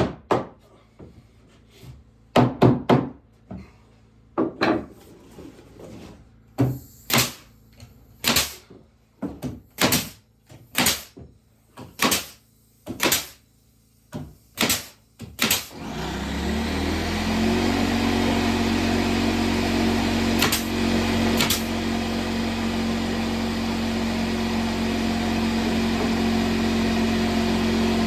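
A run of about a dozen hard strokes or strikes, roughly one a second, then a small electric motor starts with a short rising hum about sixteen seconds in and runs steadily without load.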